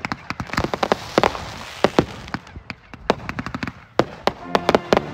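Fireworks going off: a quick, irregular string of sharp bangs, with dense crackling through the first couple of seconds.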